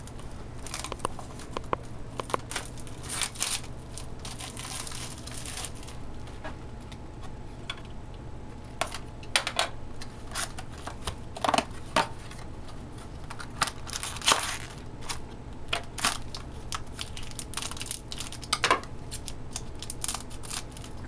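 Clear plastic shrink-wrap being torn and crinkled off a trading card box, in irregular bursts of crackling rustle, over a low steady hum.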